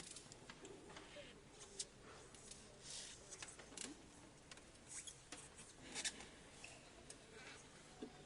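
A crowd sitting down: faint, overlapping rustling and shuffling with many scattered small clicks and knocks, the sharpest about two and six seconds in.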